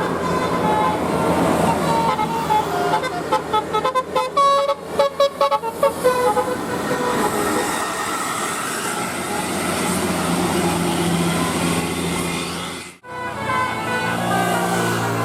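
A bus's 'telolet' musical air horn playing a quick tune of short notes at changing pitches, about three to six seconds in, over a running engine and street noise.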